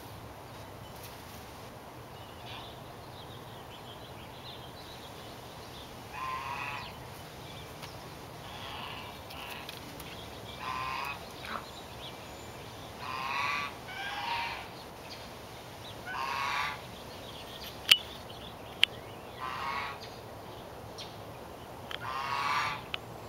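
Short pitched calls of a bird or farm animal, each under a second, repeated every few seconds. Two sharp clicks about a second apart come past the middle.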